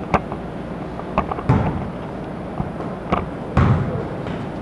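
Irregular thuds and knocks from a pickup basketball game: the ball bouncing and players' feet on the floor of an indoor barn court, with two heavier low thuds about a second and a half and three and a half seconds in.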